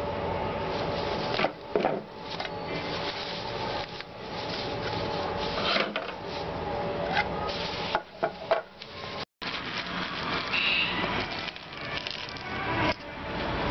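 Plastic packing bags crinkling and small plastic and rubber mixer-grinder parts knocking and rubbing on a workbench as they are unwrapped and handled, over a steady background hum.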